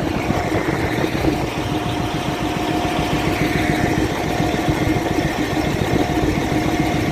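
Caterpillar 988F2 wheel loader's diesel engine running steadily at idle, a constant rumble with a steady hum, its number 5 injector refitted and no longer leaking fuel.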